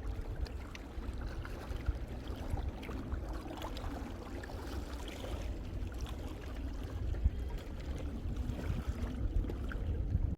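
Small lake waves lapping at the shore, a steady wash of water with scattered small splashes.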